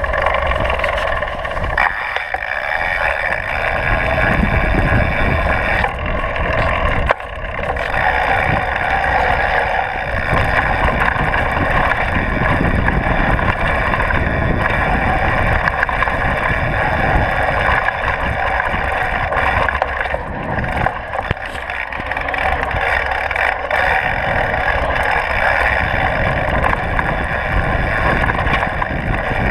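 Downhill mountain bike riding down a dirt trail: continuous wind rush on the chest-mounted camera's microphone with rough rumble and rattle from the tyres and suspension over the ground, and a steady high hum throughout. The noise dips briefly about seven seconds in.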